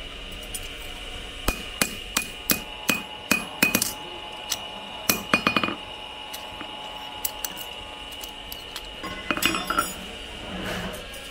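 Hand hammer striking steel, forging a wrench into shape: a quick run of about nine blows about a second and a half in, some ringing briefly, then a handful more a little later and a short flurry of lighter taps near the end.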